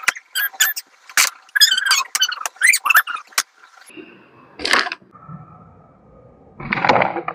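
Wooden carrom pieces clicking together on the board in quick taps, then two louder knocks about two seconds apart as a striker is flicked into the pieces.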